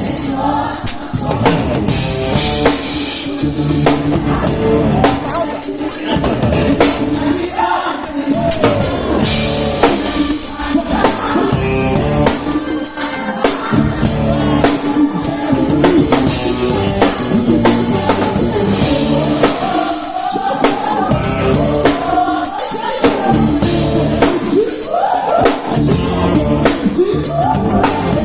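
Live worship band playing with singing over a drum kit, continuous and loud throughout.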